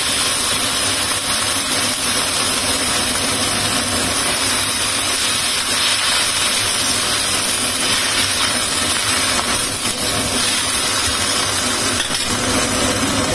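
Chinese cabbage sizzling in a hot wok as it is stir-fried, a steady hiss.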